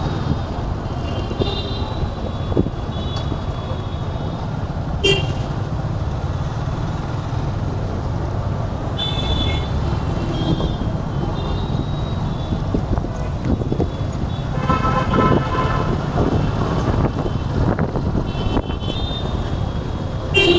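City road traffic heard while riding: a steady rumble of engine and road noise, with several short vehicle horn toots from the surrounding traffic. The longest toots come about two-thirds of the way through.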